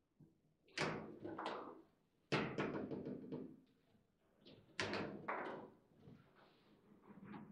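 Table football in play: hard knocks and thuds of the ball being struck by the rod figures and hitting the table walls, with rods clacking. There are three loud hits, about a second in, near two and a half seconds and near five seconds, each followed by a quick run of smaller knocks.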